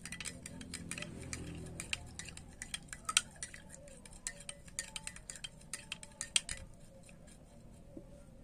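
A spoon clinking against a glass while stirring cough medicine into about 100 ml of water to dissolve it: a quick, irregular run of clinks that stops about two-thirds of the way through.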